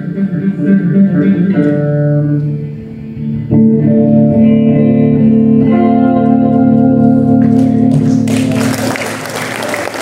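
Electric guitar playing the closing chords of a slow ballad, with a last chord strummed about three and a half seconds in and left to ring. Near the end the audience breaks into applause.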